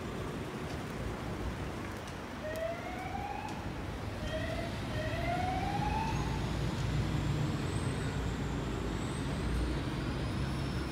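Emergency-vehicle siren: several short rising wails, starting a couple of seconds in, over a steady low rumble that grows stronger about halfway through.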